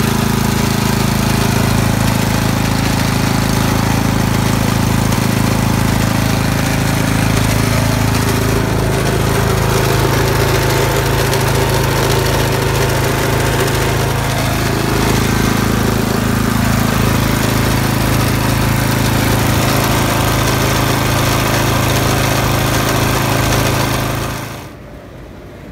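The engine of a 36-inch Bunton walk-behind mower running loudly and steadily, heard close up. The sound stops suddenly near the end.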